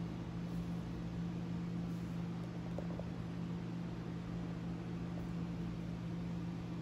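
Steady low hum with a faint hiss behind it, unchanging throughout: the background hum of a room with an appliance or fan running, with a couple of faint ticks about three seconds in.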